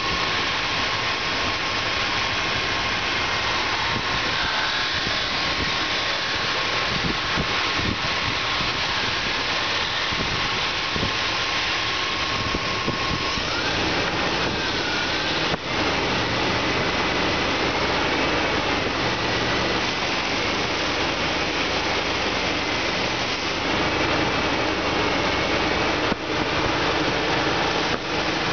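2000 Dodge Durango engine running steadily on a test run, heard close up under the hood, with a thin whine that glides up in pitch about halfway through and wavers after that.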